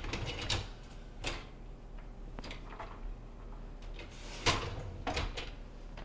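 Wire dish racks of a KitchenAid built-in dishwasher clattering and knocking as they are pushed in, the top rack rolling on its newly fitted adjuster arms and wheels. A handful of separate knocks, the loudest about four and a half seconds in.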